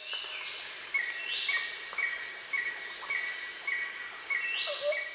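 Outdoor nature sounds: a steady high trill with a short, high chirp repeating about every two-thirds of a second.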